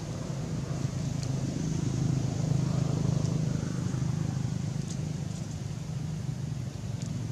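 A motor's low, steady hum that swells about two seconds in and eases off again toward the end.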